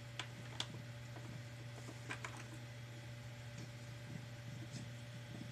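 A few sharp plastic clicks from a baby's ride-on toy as its side knob is turned: two in the first second and a close pair about two seconds in. A steady low hum runs underneath.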